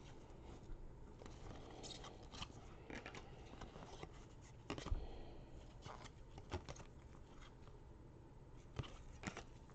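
Faint clicks and rustles of 2017 Chronicles baseball cards being flipped and slid through gloved hands, with a sharper snap about five seconds in.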